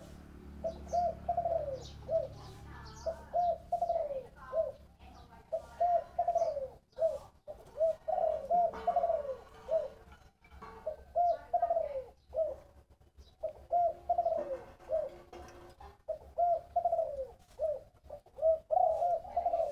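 Spotted dove cooing in a deep, round voice that Vietnamese keepers call "thổ bầu". It repeats a phrase of a few short coos ending in a longer falling note, about eight times with short pauses between.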